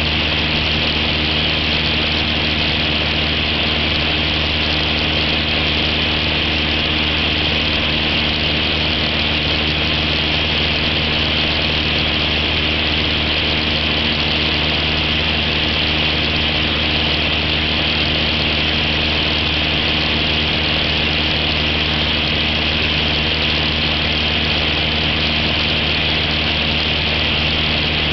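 Cessna 172's piston engine and propeller running steadily in cruise flight, heard inside the cabin as an even drone with a hiss of airflow over it.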